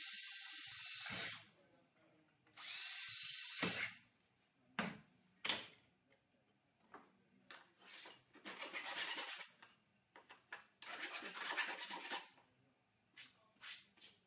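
Cordless drill running in two short bursts as it drills through steel trunking, followed by a few knocks and then a hand file rasping in two runs of strokes along the freshly drilled metal to take off the burrs.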